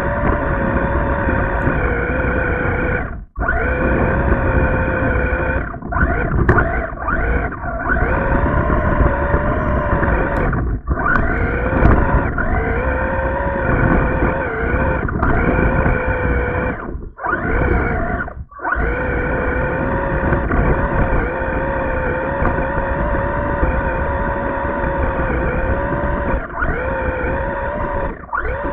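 Electric motor of a radio-controlled car whining steadily as it drives over slush, heard from a camera mounted on the car, with a low rumble underneath. The whine cuts out briefly a few times as the throttle drops.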